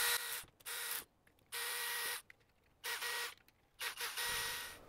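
Electric screwdriver running in about five short bursts with a steady whine, driving 4-40 screws into a 3D-printed plastic rail and shroud at a low torque setting.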